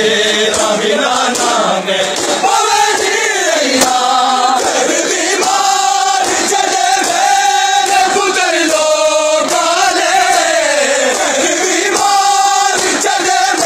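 A crowd of men chanting a noha, a Shia mourning lament, loudly together in one melody.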